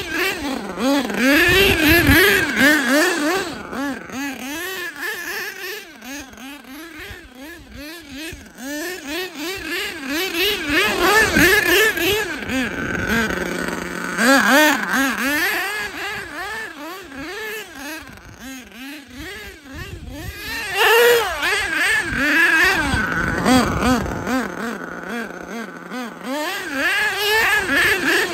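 HPI Savage nitro RC monster truck's small two-stroke glow engine revving up and down over and over as it churns through snow, its high buzzing pitch rising and falling with the throttle and loudest in several bursts.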